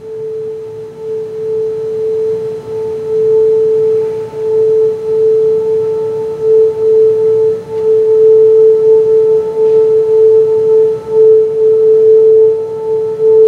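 A single pure, steady mid-pitched note held by the concert band as a long drone, swelling and dipping slowly in loudness.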